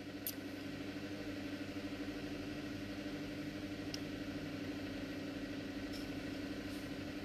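Low, steady electric hum of a wall-mounted fan running, with a few faint clicks.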